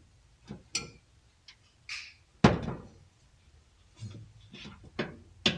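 Scattered clicks and knocks of parts and tools being handled inside a car, with one loud thunk about two and a half seconds in.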